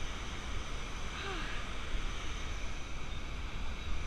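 Steady rushing roar of a large waterfall, with wind rumbling on the microphone.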